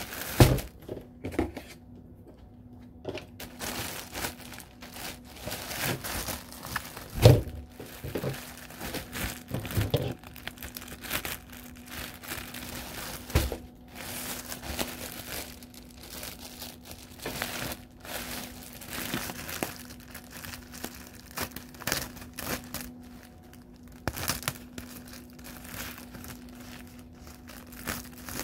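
Clear plastic poly bag crinkling and rustling as a packaged hoodie is handled and cut open with scissors, with a few dull thumps, the loudest about seven seconds in.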